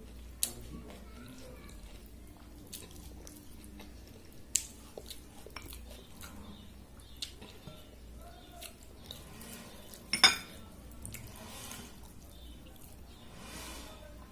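Fingers mixing watery soaked rice (panta bhaat) in a ceramic bowl: soft wet squishing, broken by sharp clicks against the bowl. The loudest click comes about ten seconds in, with others just after the start and about four and a half seconds in.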